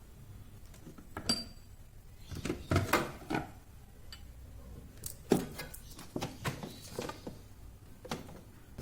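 Dishes and containers being handled and set down: a scattered string of knocks and clinks, one ringing clink about a second in.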